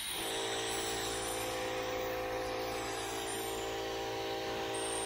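Harbor Freight gravity-feed spray gun hissing as it sprays paint. A steady motor hum starts right at the beginning: the air compressor feeding the gun kicking on.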